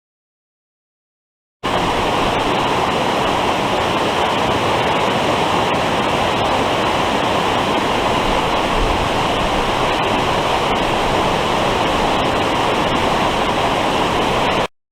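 Steady rush of flowing river water, starting abruptly about two seconds in and cutting off just before the end.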